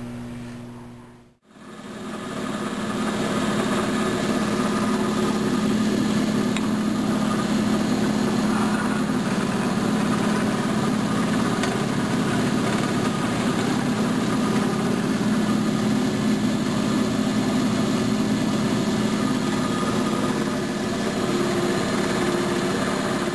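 Horizontal boring machine's 1.5 horsepower electric motor spinning up about a second and a half in, then running the spindle steadily with an even hum.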